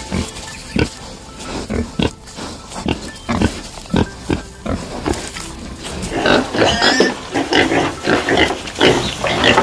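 Domestic pigs grunting, short grunts repeating every half second or so. About six seconds in, a busier, higher-pitched run of squeals and grunts takes over.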